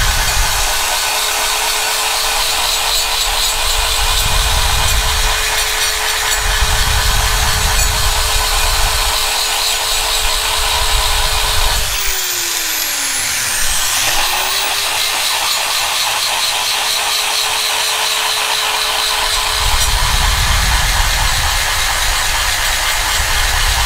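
A high-speed grinder porting a Mazda F2 cylinder head: a steady high whine with rough grinding noise as the cutter works the metal. About twelve seconds in it winds down in pitch, then about two seconds later spins straight back up to speed and carries on cutting.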